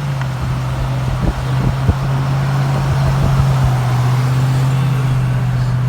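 Road and engine noise heard from inside a moving vehicle at road speed: a steady low drone with tyre and wind rush over it, with a few light knocks.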